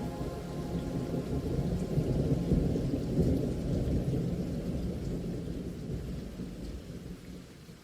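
Rain with a long, low rumble of thunder that swells a couple of seconds in, then slowly fades away.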